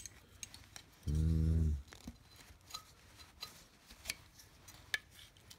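Light clicks and taps of the thin metal stake sections and clear plastic figures of a solar garden stake light being handled and fitted together. A short hummed voice sound comes about a second in.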